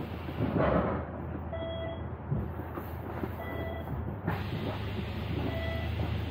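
Moving bus heard from inside: a steady low engine and road drone with knocks and rattles from the body. Three short electronic beeps sound about two seconds apart.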